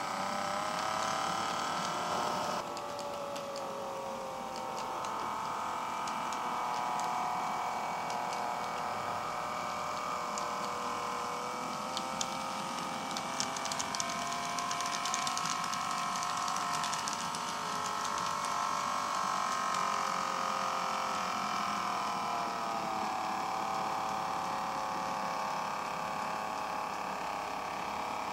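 Motor of a KATO N scale Rhaetian Railway ABe 8/12 "Allegra" model train whining as it runs on PWM power, the whine drifting slowly up and down in pitch as the speed changes. A cluster of light clicks comes a little past the middle.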